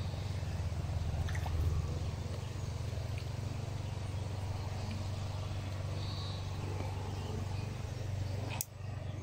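Low, steady rumble of wind buffeting the microphone, with a single sharp click near the end.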